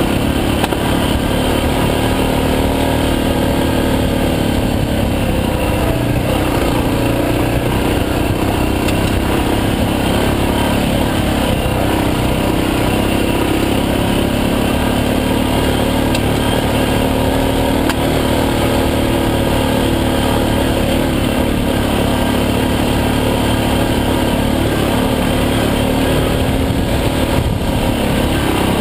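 Suzuki DR650's single-cylinder four-stroke engine running steadily while the motorcycle is ridden up a rocky gravel trail, its note rising and falling a little with the throttle.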